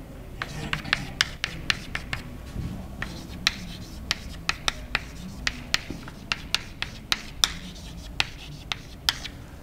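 Chalk writing on a blackboard: a quick, irregular run of sharp taps and short scrapes as an equation is written out, stopping shortly before the end.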